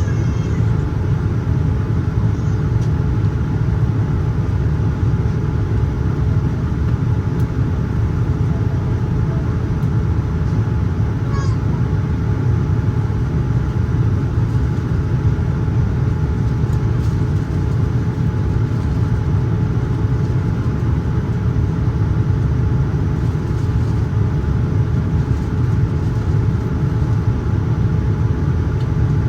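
Steady cabin noise of a Boeing 787-9 airliner in flight: an even, low roar of engines and airflow, with a faint steady hum running through it.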